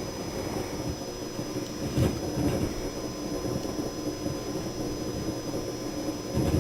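Steady electrical background noise from a Focusrite Scarlett 2i2 audio interface played through speakers: two constant high-pitched whines over a low buzzing hum and hiss. The noise appears when the interface is powered from the computer's USB port. A soft knock is heard about two seconds in.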